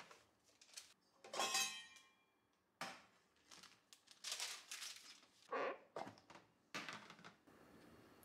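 A round stainless steel tray set down on a stainless steel counter with a brief metallic ring, followed by several soft knocks and rustles of kitchen handling as a sheet of baking paper is laid on it.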